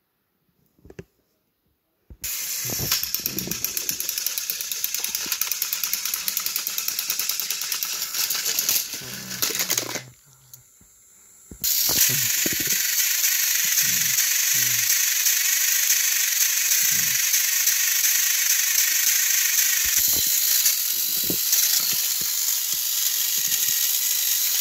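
Battery-powered Thomas & Friends toy engines' small electric motors whirring, with a fast rattle from the gears and wheels as two engines strain against each other on plastic track. They start about two seconds in, stop briefly around ten seconds, then run again, with a few light knocks.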